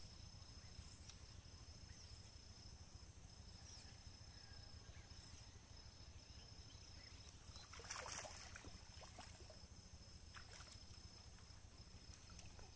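Near silence: a faint steady background hum and hiss, with one brief burst of noise about eight seconds in.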